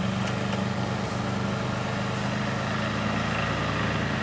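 Small lawnmower engine running at a steady speed.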